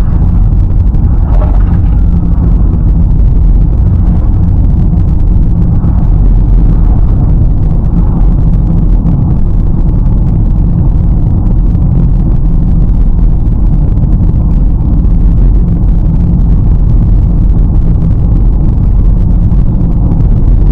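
Car driving over rough, broken asphalt, heard inside the cabin: a loud, steady low rumble of tyres and suspension on the bad road surface.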